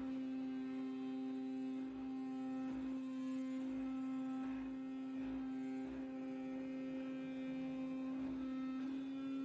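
CNC vibration-knife cutting machine running while it cuts car-mat material: a steady electric hum with one strong pitch and several overtones above it.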